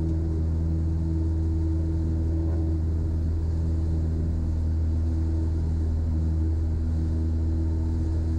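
Cessna 172's engine and propeller droning steadily in the climb-out: an even low hum with a few steady tones above it.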